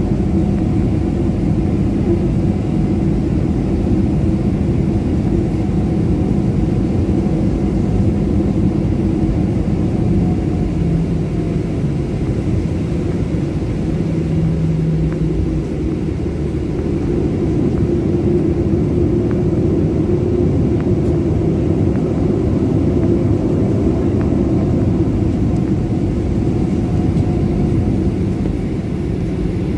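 Cabin noise of a Boeing 737 MAX 9 taxiing at low engine power: a steady low rumble, heard inside the cabin, with a low hum that shifts slightly in pitch around the middle.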